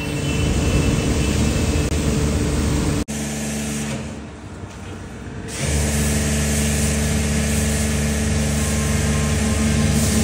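Car-wash pressure washer running: a steady motor-pump drone with the hiss of foam spray. It breaks off suddenly at about three seconds, runs quieter for a couple of seconds, then comes back up to full strength and keeps running.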